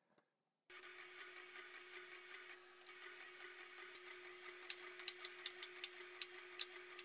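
Canon Pixma iX6820 inkjet printer printing onto transparency film: a faint, steady mechanical hum, with a run of sharp ticks in the last two seconds or so.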